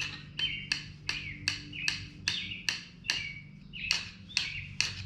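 Emery cloth rubbed back and forth by hand on metal, sanding old oil pan gasket off a Chevy 350's gasket surface: an even, scratchy rasp about two and a half strokes a second, each stroke ending in a short squeak.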